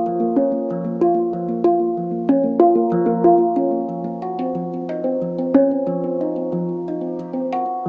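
Harmonic Sound handpan tuned to B-flat minor, played by hand: a steady flow of struck notes, several a second, each ringing on and overlapping the next.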